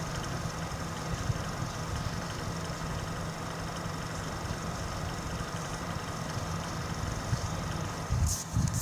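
MSI computer running with a steady low hum and a few faint steady tones above it. This is the odd noise the owner is asking about. Near the end come a couple of short bumps.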